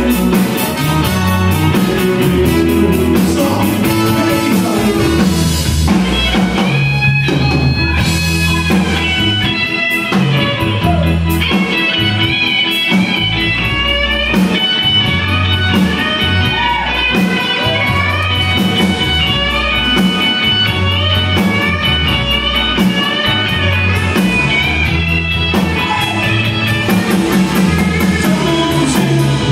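Live Tex-Mex band playing an instrumental break: an electric guitar lead with bending notes over bass and drum kit.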